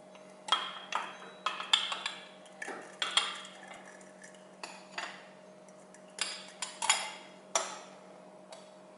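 Glass server clinking and knocking against the steel rods, nuts and bolts of a cold drip coffee tower as it is fitted in place beneath the drip valve: a string of irregular sharp clinks, several in quick succession.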